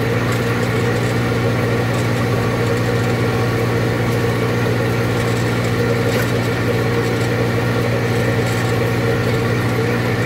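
Tractor engine and a mounted carrot-topping machine running steadily as it cuts the green tops off rows of carrots: a constant, unchanging low hum.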